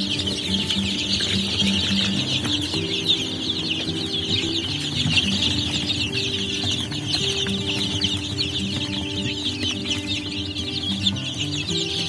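A flock of two-week-old Kadaknath chicks peeping constantly, many high chirps overlapping into a continuous chorus.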